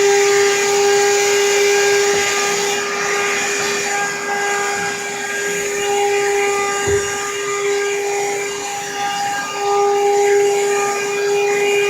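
Vacuum cleaner running on the stairs: a steady motor whine over the hiss of air being drawn in. There is a single brief knock about seven seconds in.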